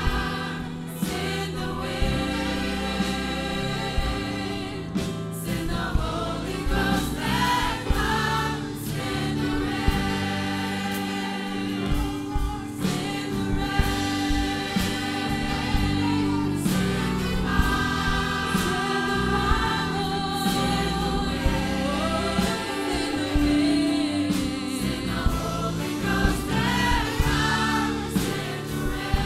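Live gospel worship music: a congregation singing together over a band, with sustained voices and regular drum hits.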